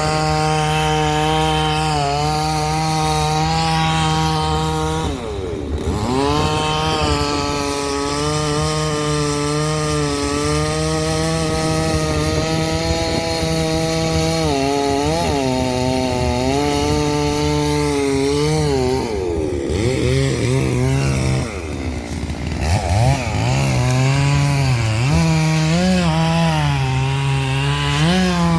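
Two-stroke chainsaw cutting wood, its engine running near full throttle. Its pitch drops and climbs back up about five seconds in, and again from about nineteen to twenty-two seconds in, as the revs ease off and come back.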